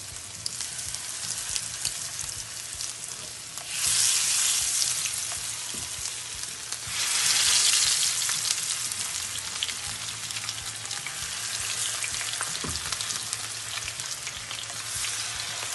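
Pepper-marinated chicken pieces sizzling in hot coconut oil while being shallow-fried in a pan. The sizzle surges louder twice, about four and seven seconds in, as more pieces go into the oil, with small pops throughout.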